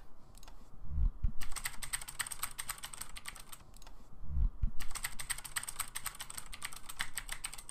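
Keyboard-typing sound effect: two runs of rapid keystroke clicks, each starting just after a short low thump, as the on-screen text types itself out.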